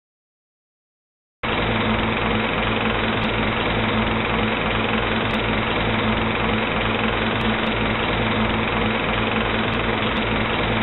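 Movie projector running steadily, cutting in about a second and a half in after dead silence.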